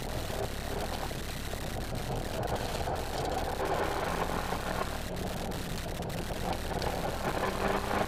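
Renault Mégane R26.R's turbocharged 2.0-litre four-cylinder engine running under load, heard from inside the cabin over tyre and road noise. The engine note holds steady.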